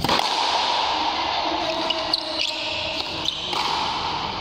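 Frontenis rally: the rubber ball struck by rackets and cracking off the frontón wall, several sharp strikes, one right at the start and a cluster about two to three and a half seconds in.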